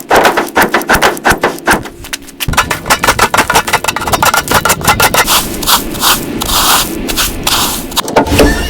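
Fast, repeated scraping strokes, several a second, as from a hand tool worked back and forth over a surface.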